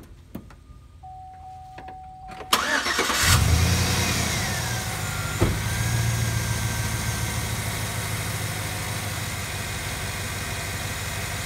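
Chevrolet Silverado's 5.3-litre V8 cranked and started about two and a half seconds in, flaring up briefly and then settling to a steady idle. It runs quietly with only the normal valve train sound: the exhaust manifold leak at the broken stud is sealed by a Dorman clamp.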